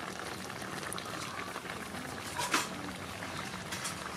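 A pot of coconut-milk curry bubbling on the fire, with coconut milk poured into it at the start and a single sharp click about two and a half seconds in.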